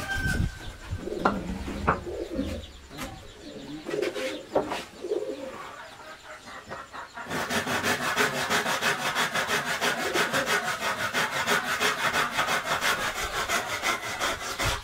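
Scattered knocks and bird calls, including a dove cooing, then from about halfway a hand tool working wood with rapid, even strokes, several a second.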